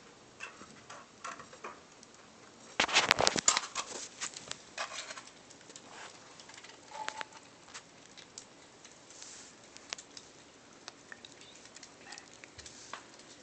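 Kittens eating from a bowl of food: scattered small clicks and ticks, with a short, loud burst of clattering about three seconds in.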